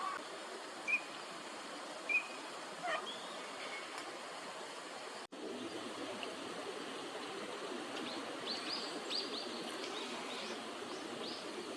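Steady outdoor hiss of water and distant noise, with a few short high whistles from Eurasian teal and brief high bird chirps. The sound cuts out for an instant about five seconds in.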